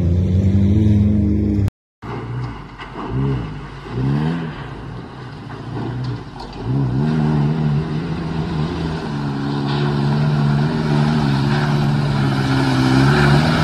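Pickup truck engine revving up and down a few times, then running hard and steady as the truck speeds closer, with the hiss of water spraying off its tyres growing louder toward the end. In the first two seconds another truck's engine runs steadily before a brief cut to silence.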